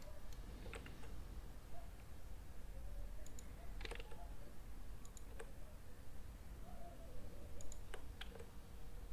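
Scattered, irregular clicks of a computer mouse and keyboard as shortcut keys are pressed, over a low steady background hum.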